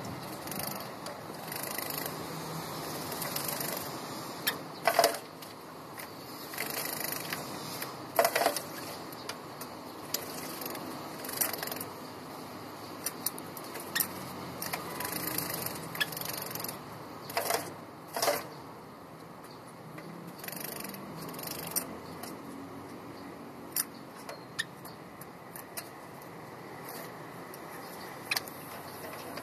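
Java sparrow bathing in a plastic clip-on cage bath: short bursts of splashing and wings beating the water at irregular intervals, spaced by quieter pauses, growing sparser in the last third.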